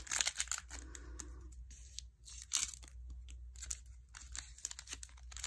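Foil wrapper of a Panini Prestige football card pack being torn open and crinkled, in several short crackly bursts.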